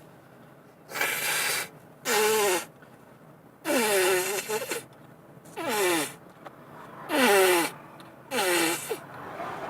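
A fit of sneezing: six loud sneezes in a row, about one to two seconds apart. Each is a sharp hissing burst with a falling cry in it.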